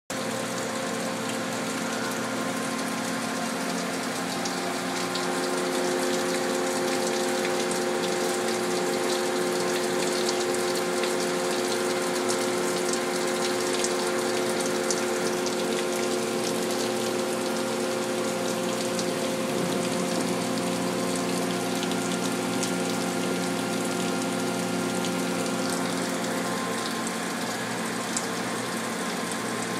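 Monarch Metalist CNC lathe running through a program: a steady machine hum of several tones over a hiss. The tones shift about five seconds in and again near the end.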